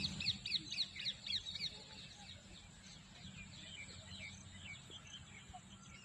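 Birds chirping: a fast run of short falling chirps, about five a second, for the first second and a half, then softer scattered chirps, over a steady high whine and a low hum.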